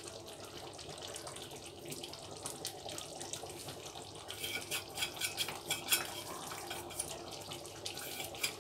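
Thick curry simmering in a steel kadai on a gas burner: a steady bubbling hiss with small pops and ticks, which come thicker for a couple of seconds about halfway through.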